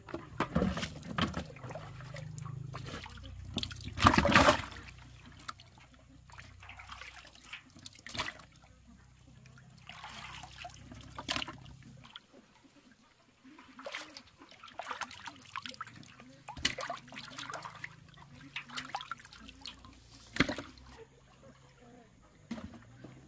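Water splashing and sloshing in irregular short bursts, with trickling between them; the loudest splash comes about four seconds in.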